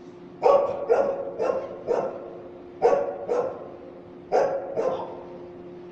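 A dog barking in short sharp barks, in three bursts: four barks, then two, then three.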